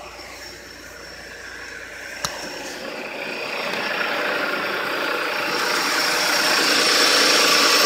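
Car engine idling with the AC switched on but the compressor not engaging. It grows louder about three seconds in, with a single knock about two seconds in.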